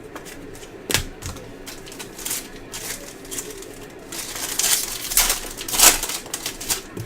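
Trading cards and their packaging being handled: rustling and crinkling with sharp clicks, one about a second in, and a louder run of rustles from about four to six seconds in.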